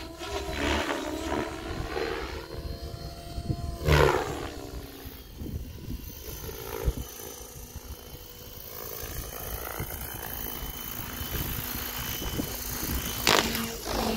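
OXY 5 electric RC helicopter flying aerobatics, its rotor and motor whine swinging up and down in pitch as it passes to and fro. Two loud close passes come about four seconds in and near the end.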